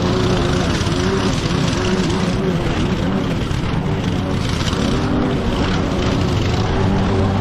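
Small petrol engine of mowing equipment running steadily under load while cutting thick, wet grass. Its pitch wavers briefly in the middle, then holds steady again.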